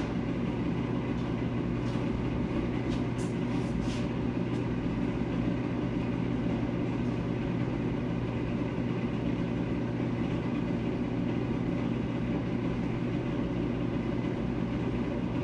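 Shop ventilation fan running with a steady drone and low hum. A few faint clicks come about two to four seconds in.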